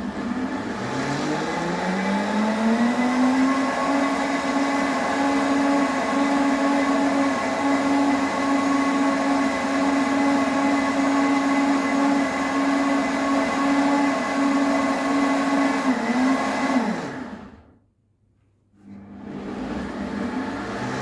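Countertop blender motor running on a fruit and orange-juice smoothie, its pitch rising as it speeds up, then holding steady. It winds down and stops about three-quarters of the way through, then starts again and speeds up near the end.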